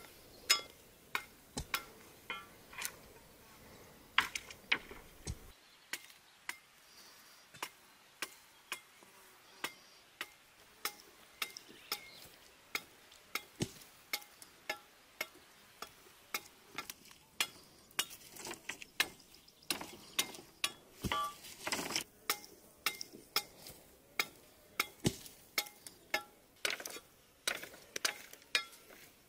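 A blade chopping at the end of a wooden pole, sharpening it to a point with crisp strikes. About five seconds in, this gives way to a dog gnawing and crunching a bone, with sharp irregular cracks of teeth on bone, denser toward the end.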